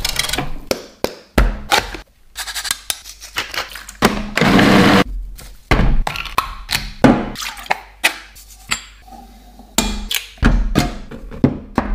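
Quick-cut kitchen prep sounds: a rapid run of thunks and taps as a hand-cranked meat grinder, a plastic milk jug and an egg over a steel mixing bowl are handled. A longer rushing noise comes about four seconds in.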